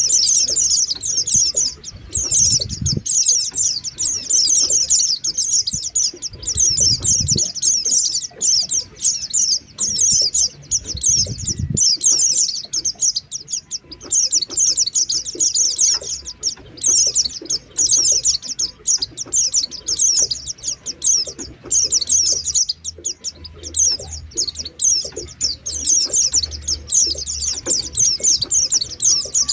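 White-eye (pleci) song: fast, high-pitched twittering trills that run on almost without a break, only briefly pausing now and then.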